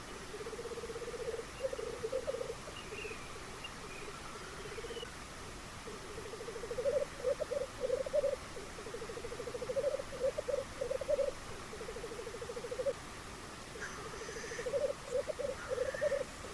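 Black grouse cock's bubbling lek song: long runs of rapid, pulsed low cooing that swell every second or so into louder bursts, with short gaps between phrases. A few faint higher chirps come in early and again near the end.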